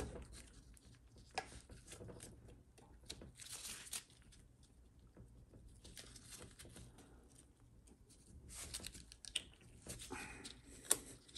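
Faint handling of a TH400 transmission pump: small metal clicks and scraping from snap ring pliers pressing the boost valve and spring into their bore and fitting the snap ring, with rustling of gloved hands. A few sharper clicks stand out, the loudest near the end.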